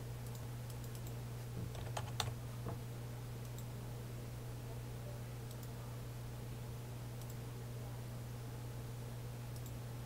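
A few quick computer keyboard keystrokes about two seconds in, typing a distance value, over a steady low hum.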